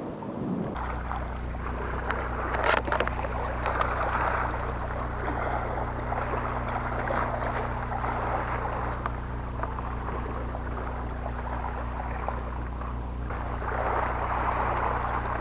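Boat engine running steadily, a low even hum under the rush of wind and water, with one sharp click about three seconds in.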